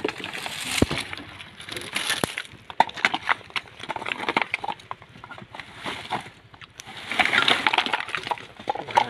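Dry coconut husks, shells and palm fronds rustling and knocking as they are prodded and shifted with a metal rod, with many sharp clicks and cracks and a denser rustle about seven seconds in.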